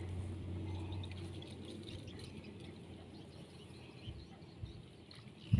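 Faint outdoor ambience: a low hum fades out over the first two seconds, leaving quiet with faint bird chirps.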